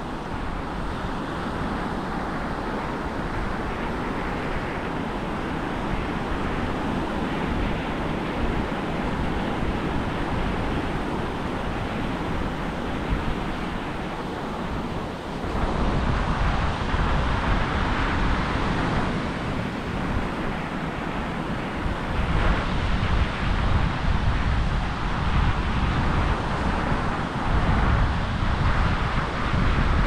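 Wind buffeting the microphone over the wash of surf on a sandy beach. The low wind rumble grows stronger about halfway through and again a few seconds later.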